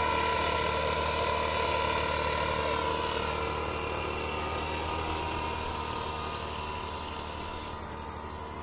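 Two-stroke engine of a backpack motorised mist-blower duster running steadily at high speed, with the rush of its blower as it blasts sulphur dust over the crop. It grows fainter over the last couple of seconds as it moves off.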